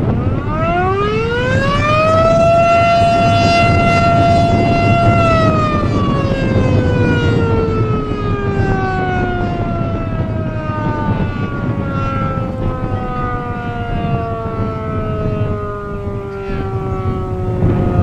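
Darley Champion electromechanical outdoor warning siren sounding a short test blast: it winds up over about two seconds, holds one steady wail for about three seconds, then winds down slowly, still falling at the end. Heavy wind noise on the microphone throughout.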